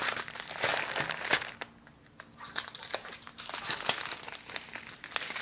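Strips of small clear plastic bags full of diamond painting drills crinkling as they are handled and moved, with sharp little crackles and a quieter pause about two seconds in.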